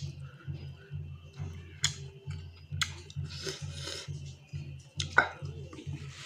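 A man eating rice and curry with his fingers: wet chewing and lip-smacking, with sharp clicks and fingers working the food on a steel plate. The loudest smack comes about five seconds in. A low throbbing pulses steadily underneath.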